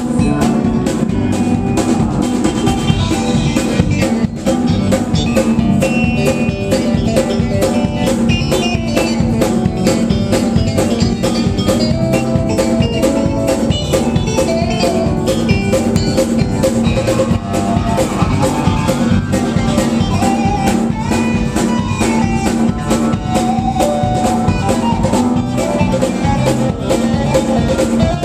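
Live band playing with a drum kit keeping a steady, fast beat under guitar and other instruments, continuously.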